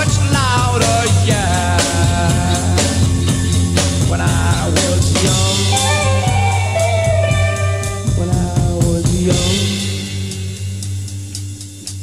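Instrumental break of a 1960s psychedelic rock record: electric guitar lines with bending notes over bass and a drum kit. The sound thins out somewhat near the end.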